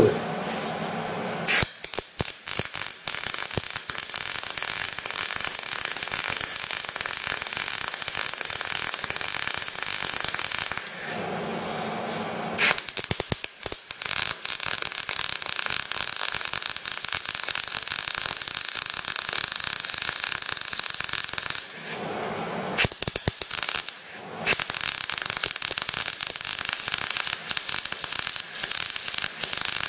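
MIG welder arc crackling as plug welds are laid into a steel car body panel, in three long runs with short breaks about 11 and 22 seconds in.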